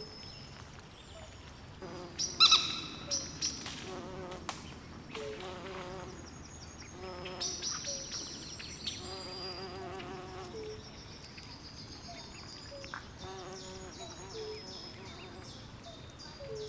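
Night swamp chorus: insects chirping in quick repeated high pulses, with several wavering, trilling calls from frogs and one louder call about two and a half seconds in.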